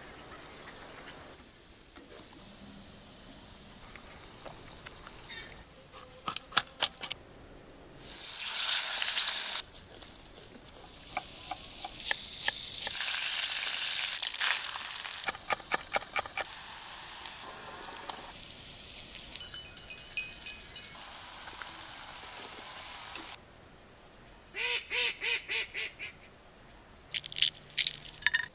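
A run of cooking sounds. Birds chirp in the first few seconds. Then chicken pieces sizzle as they fry in oil in a pan, with clicks and knocks of a wooden spoon and dishes. Near the end there are sharp cracks as a pomegranate is broken open by hand.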